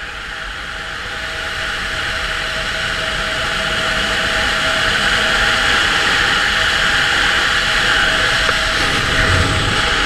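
Wind rushing hard over the camera microphone during a fast descent, growing steadily louder as the airspeed builds, with a faint steady whistle in it.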